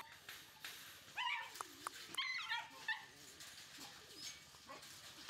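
Six-week-old Shiba Inu puppies giving short, high-pitched yips and whines: a brief call about a second in and a longer run of calls around two seconds in.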